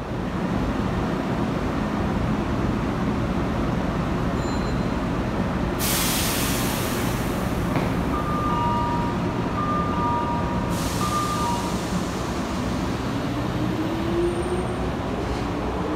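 Hankyu 5300-series electric train pulling out of an underground station: a steady rumble, a long hiss of air starting about six seconds in and lasting around five seconds, and a rising motor whine near the end as it picks up speed. A two-note electronic chime sounds over the hiss.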